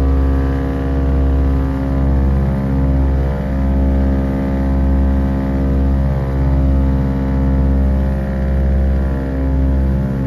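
Ford Tri-Motor's radial engines and propellers running steadily in flight, heard from inside the cabin: a deep, even drone that swells and fades about once a second.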